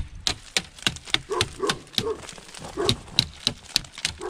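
Ice cracking and snapping off frozen chicken wire as a PVC pipe is knocked through it: a rapid series of sharp cracks and clinks, with a few short animal calls in between.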